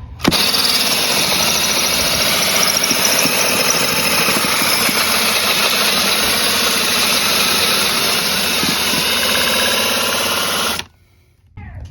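Ryobi drill spinning a 4-inch Diablo bi-metal hole saw as it cuts into wood: a loud, steady grinding run that starts abruptly and stops about a second before the end.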